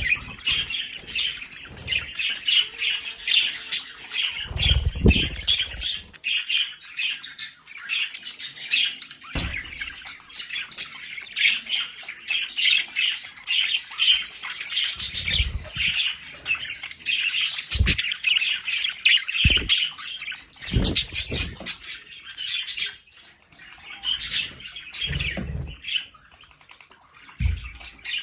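Budgerigars chattering and warbling together in a continuous rapid stream of chirps and squawks, with a few short low thumps scattered through it.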